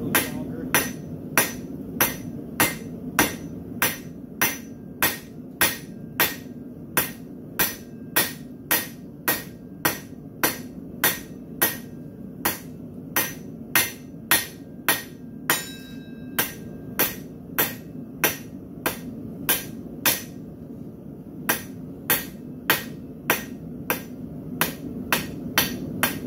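Hand hammer striking red-hot steel bar stock on an anvil, forging a hoof pick, in a steady rhythm of about two blows a second with a short pause about twenty seconds in. A steady low hum runs underneath.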